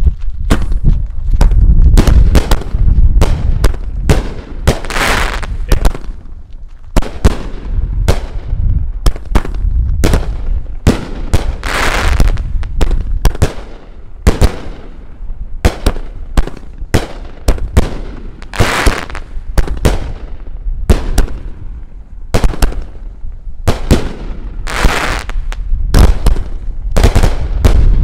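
One Really Bad Mother consumer firework cake firing a long run of aerial shots: many sharp cracks of bursting shells in quick succession, with a longer hissing stretch about every seven seconds and a low rumble underneath.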